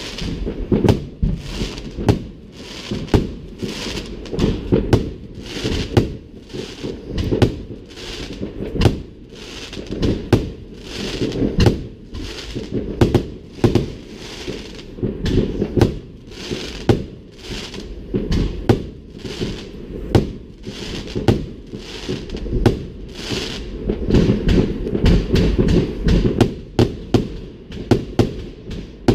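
Fireworks display: a dense, continuous run of aerial shell bursts and bangs, one after another every second or so, with a low rumble between the blasts.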